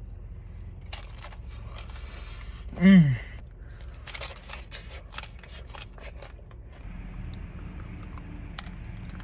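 Crisp crunching as a waffle-cone bowl and chocolate-dipped waffle pieces are bitten and chewed, a rapid run of sharp cracks. About three seconds in, the eater gives a short, loud hum that falls in pitch.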